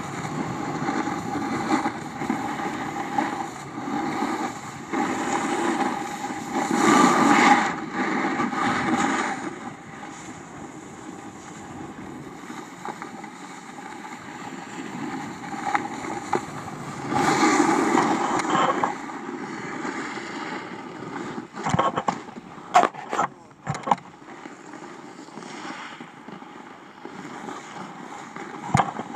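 Snowboard sliding and scraping over packed snow, with wind rushing over the pole-mounted camera's microphone; the scraping swells on turns about 7 s and 18 s in. A few sharp knocks come a little past the middle.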